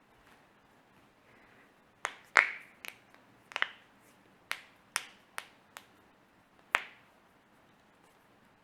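Finger knuckles cracking: about ten sharp, separate pops spread over some five seconds, starting about two seconds in, the second one the loudest.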